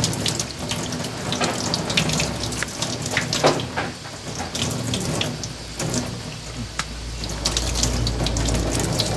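Kitchen tap running into a stainless-steel sink while small sardines are rinsed under it by hand, water splashing off the fingers and fish in quick irregular spatters. A low rumble comes in about halfway through.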